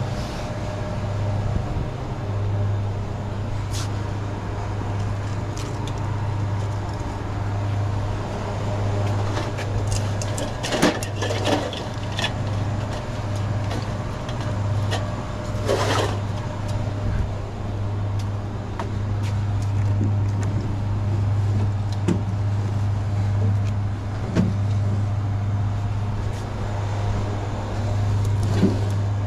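Soda cans and plastic bottles being handled and set onto store shelving, with scattered knocks and rattles, the loudest about 11 and 16 seconds in. A steady low hum runs underneath.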